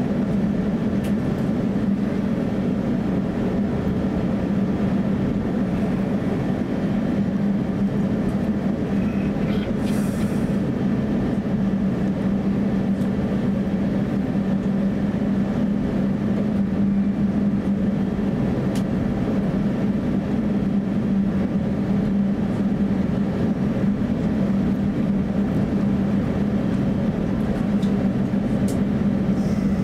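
Cabin noise of an Airbus A350-900 taxiing: a steady low drone and rumble of the engines at taxi power and the air conditioning, heard through the cabin. A brief hiss comes about ten seconds in.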